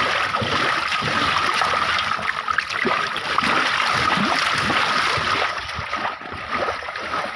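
Water splashing and trickling, many small splashes close together, easing off a little near the end.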